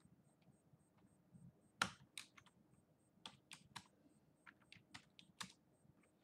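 Computer keyboard typing: sparse, irregular key clicks starting about two seconds in, the first one the loudest.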